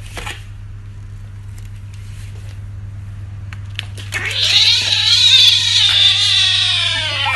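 Kitten giving one long, loud, drawn-out meow starting about four seconds in, its pitch arching up and back down. A steady low hum runs underneath.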